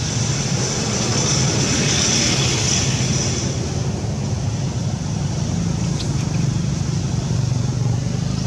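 Steady drone of a running motor-vehicle engine, with a high hiss over it for the first three or four seconds and a couple of short, faint clicks about six seconds in.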